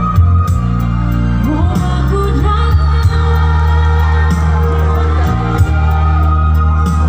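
Live pop band music played loud over a concert sound system, with a heavy bass line and a singer's voice, as heard from within the crowd.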